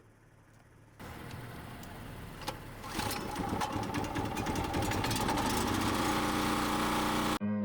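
Chainsaw engine starts about a second in and runs, getting louder about three seconds in, then cuts off abruptly near the end.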